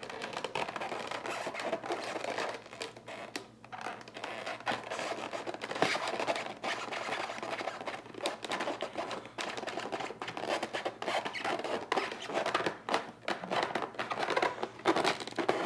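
Scraping, rubbing and small clicks as a tachometer gauge is worked into a tight opening in a Datsun 280Z dash from behind, with the corrugated plastic wire loom rustling as it is handled.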